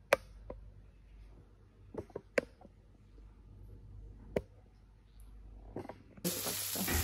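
Scattered light clicks and knocks of things being handled in a kitchen, then near the end a loud frying sizzle starts suddenly.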